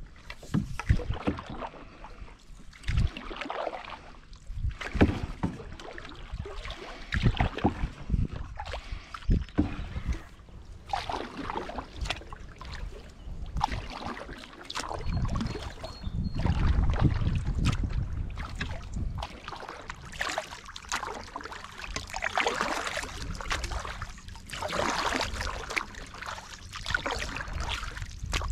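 Canoe paddle strokes: the blades dip and pull through calm creek water with irregular splashes and drips. A low rumble runs for a couple of seconds past the middle.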